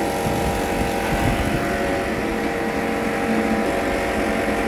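Racing motorcycle engine running at a steady speed, its even drone holding one pitch throughout over a low rumble.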